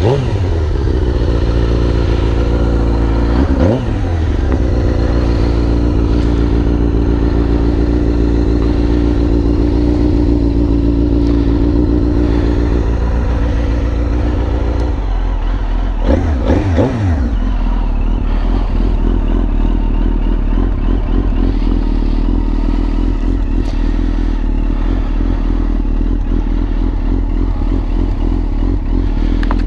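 A 2001 Suzuki GSX-R1000 K1's fuel-injected inline-four idling through its Yoshimura muffler, still warming up after a cold start. The steady idle swells briefly a few times, and its tone shifts about halfway through.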